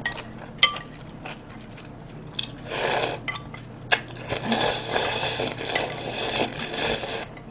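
Slurping cold yeolmu mul-naengmyeon noodles and broth from a bowl held to the mouth: a short slurp about three seconds in, then a longer one from about four and a half seconds until near the end. Light clicks of metal chopsticks against the bowl come before it.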